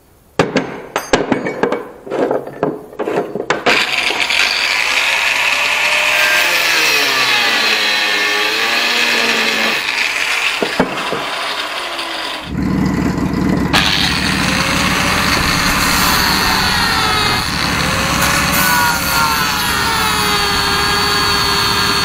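A few metal clanks, then a power tool cutting through the steel footpeg mount on a moped frame. Its whine wavers up and down in pitch as it bites, and a deeper steady hum joins in about halfway through.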